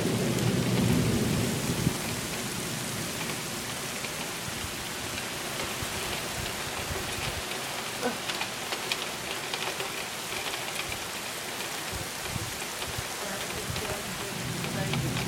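Heavy thunderstorm rain falling steadily, with scattered drop ticks. A low rumble of thunder dies away over the first two seconds.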